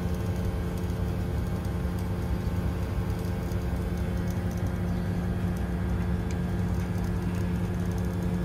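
Mitsubishi Electric StarMex MXY-4H33VG inverter multi-split outdoor unit running steadily, its compressor and condenser fan giving a constant hum with a low tone. It is working under the load of three indoor units.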